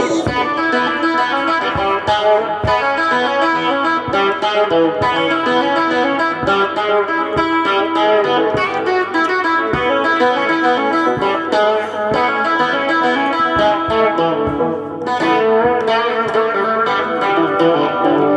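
Electric guitar played through effects, with notes ringing and overlapping over a held low tone.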